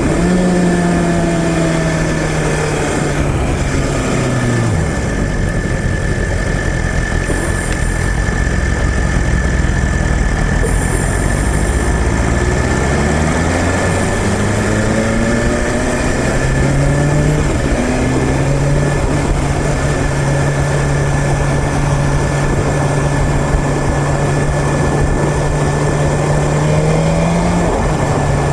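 BMW S1000RR inline-four engine under way. Its note falls as the bike slows over the first few seconds, then climbs in several rising steps as it accelerates through the gears. It then holds a steady cruising pitch, with a brief dip and a drop near the end.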